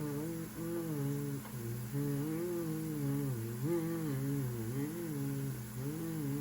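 A man humming a tune, with the notes stepping up and down in a slow melody.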